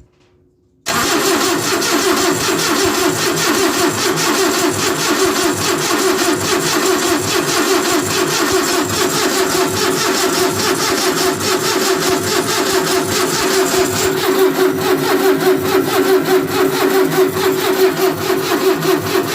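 Renault 10 engine being cranked over on its starter motor without firing, a steady rhythmic churning that starts about a second in and runs on unchanged; the cranking builds oil pressure in the freshly rebuilt engine.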